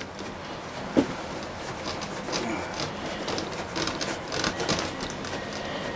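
A cloth rag rubbed back and forth over a clear plastic boat curtain, working polish in to lift oxidation: a steady run of rubbing and wiping strokes. A brief bump about a second in.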